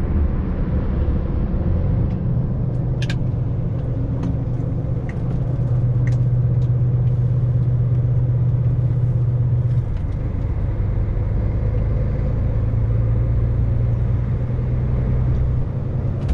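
Road vehicle engine and road noise heard from inside the cab while driving, a steady low hum. The engine note drops about ten seconds in and rises again shortly after, with a few faint rattles and clicks.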